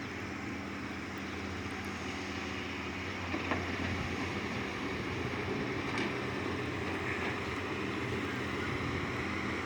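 A water pump's engine running steadily under a constant hiss of sprinkling water.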